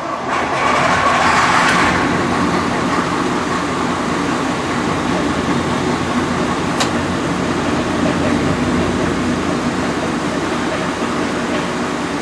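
VT 98 railbus running on the line: a steady diesel drone with wheel-on-rail rush, which swells over the first two seconds and then holds even. A single click sounds about seven seconds in.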